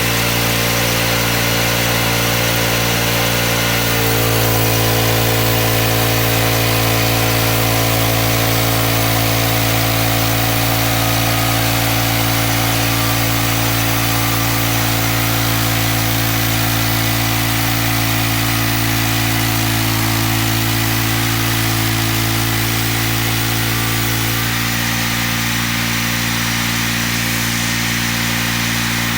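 Engine of a homemade band sawmill running steadily. Its note shifts slightly about four seconds in and shifts back near the end.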